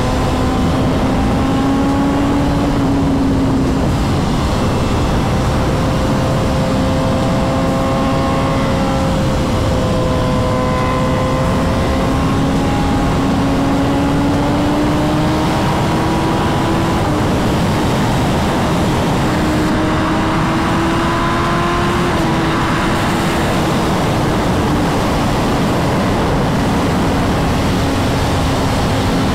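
A 2023 BMW S1000RR's inline-four engine, fitted with the BTMOTO Stage 2 tune and velocity stacks, running steadily while riding along. Its note drifts slowly up and then eases back down about two-thirds of the way through, over a steady rush of wind noise.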